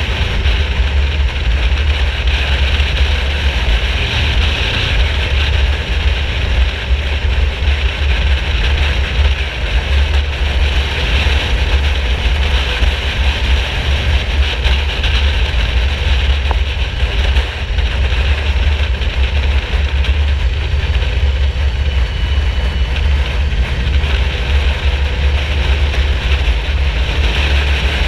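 Yamaha VMAX 1700 motorcycle's V4 engine running at a steady, even level, a low rumble with a constant hiss above it.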